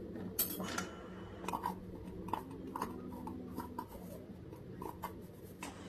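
Metal teaspoon scraping and tapping inside a plastic jar of baking powder, in scattered light clicks and scrapes.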